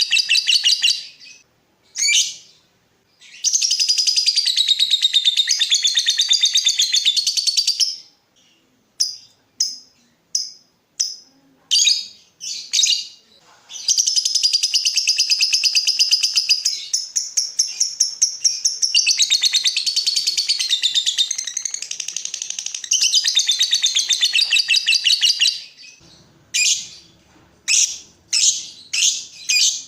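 Lovebird singing: long, very fast chattering trills lasting several seconds each, broken by runs of short, separate high chirps.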